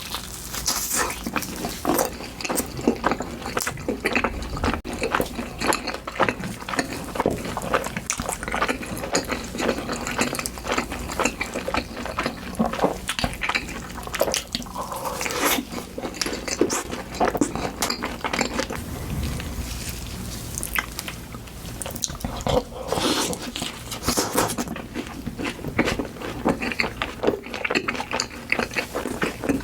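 Close-miked eating: food dipped into sauce and chewed, a dense, irregular run of mouth clicks and smacks.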